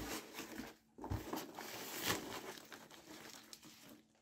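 Hands rummaging through packing peanuts in a shipping box: a rustling, crinkling shuffle that pauses briefly about a second in, then carries on and fades near the end.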